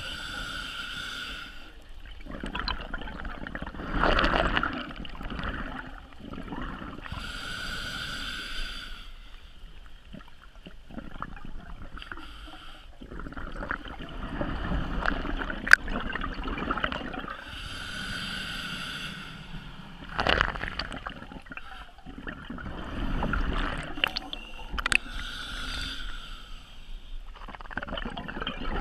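Scuba diver's regulator breathing underwater: about four hissing inhales through the demand valve, each followed by a gurgling, rumbling rush of exhaled bubbles. There is a sharp click near the middle.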